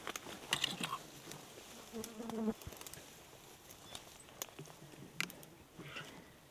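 Black bear cubs wrestling in dense undergrowth: scattered rustling and crackling of leaves and twigs, with a short insect buzz about two seconds in.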